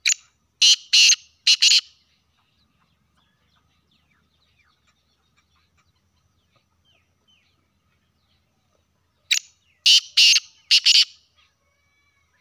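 Male black francolin calling: two loud phrases, each a short first note followed by four quick notes, one at the start and the second about nine seconds in.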